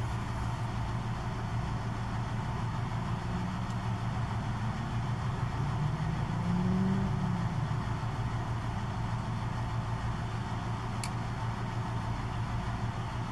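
Steady low mechanical hum like an idling engine or motor, with a brief rising-and-falling tone about six to seven seconds in and a single faint click near the end.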